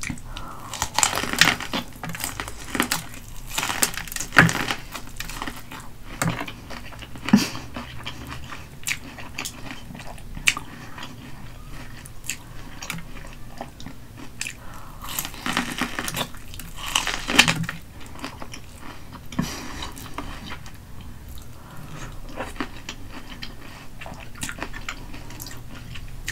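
Close-miked biting and chewing of corn on the cob coated in mayonnaise and crushed Hot Cheetos: crunchy bites with crackling and wet mouth sounds, a few bites louder than the rest.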